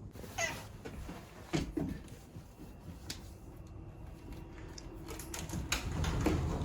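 A handful of short knocks and clatters, spaced a second or so apart, like a cupboard, door or container being handled.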